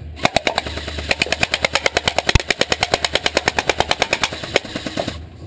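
Airsoft gun firing on full auto: a rapid, even stream of shots, about ten a second, lasting nearly five seconds, with one louder knock about two seconds in.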